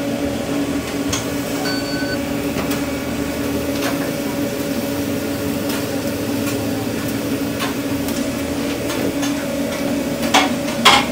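Steady machine hum of food-truck kitchen equipment, with scattered clicks and knocks of kitchen work. A short electronic beep about two seconds in, and two louder knocks near the end.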